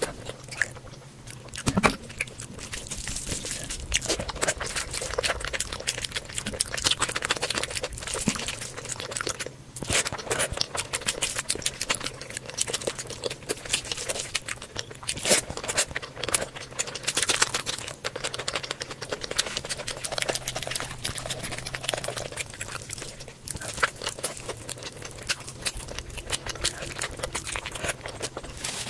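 Close-miked eating: wet chewing and smacking with crunching, as curry and rice are eaten by hand, with squelching as the curry-soaked rice is mixed with the fingers.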